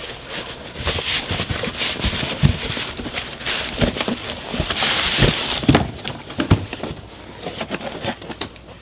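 Bubble wrap around a new blower fan motor being handled and pulled open, crinkling with many small irregular crackles and clicks, busiest in the middle and thinning out near the end.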